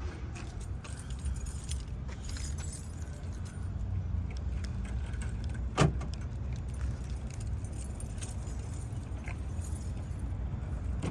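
Clinking and rattling of shopping items being loaded into a truck, with one sharp knock about six seconds in, over a steady low rumble.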